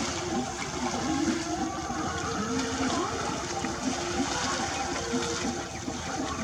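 Water splashing and sloshing as a crowd of people wade through a shallow wetland fishing with polo traps, with a continuous babble of distant voices.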